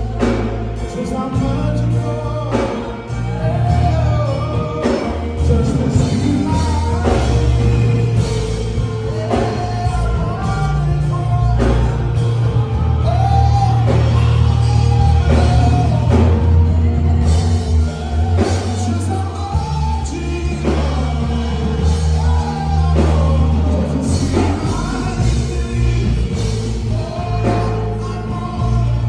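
Live worship band playing a rock-style song: singing over drums, bass and guitar.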